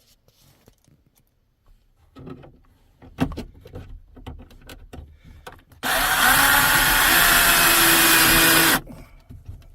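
A few light clicks and taps of handling, then about six seconds in a screw gun runs steadily for about three seconds and stops, driving a self-tapping screw into the new rear sunroof latch.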